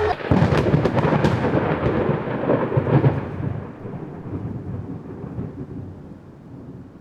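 A thunderclap: a sudden crackling crack that rolls into a rumble and fades away over several seconds.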